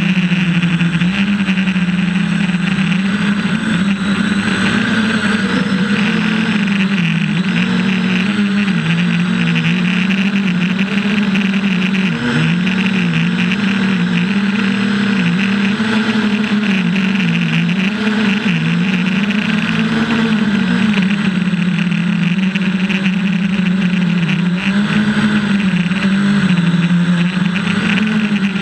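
Quadcopter's electric motors and propellers heard from its onboard camera: a steady, loud buzz whose pitch repeatedly dips and rises as the throttle is worked.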